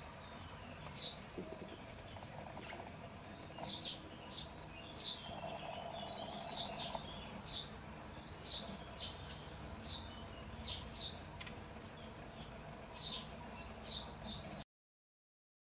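Small songbirds chirping in the background: short, high, falling chirps repeated every second or so, faint over a low outdoor hum. The sound cuts to silence near the end.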